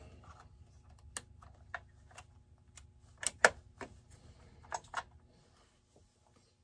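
Scattered light clicks and taps of small parts being handled on a Holzfforma 372XP chainsaw during assembly, about a dozen irregular clicks, the loudest about three and a half seconds in.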